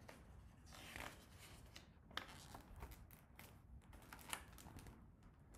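Near silence with a few faint paper rustles and light handling taps as a page of a hardcover picture book is turned.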